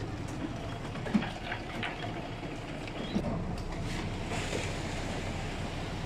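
Steady low rumble of construction machinery running, with two sharp knocks, about one second and three seconds in.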